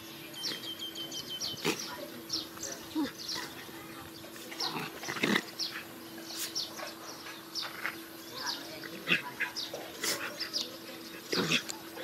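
Dogs play-fighting, with short yelps and snarls now and then, over scattered high bird chirps.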